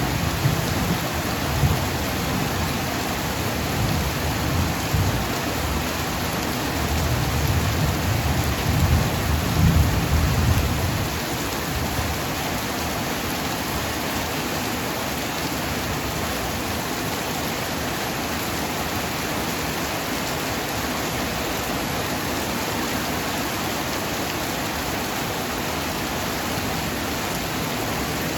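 Heavy rain pouring steadily, with thunder rumbling through the first ten seconds or so, swelling and fading, before only the downpour remains.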